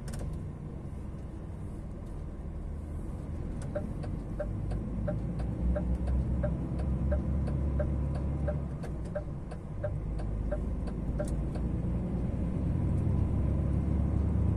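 DAF XF 480 truck's diesel engine heard from inside the cab, a steady low drone with the revs held up on the engine brake. From about four seconds in to about eleven seconds a regular light ticking runs over it, two or three ticks a second.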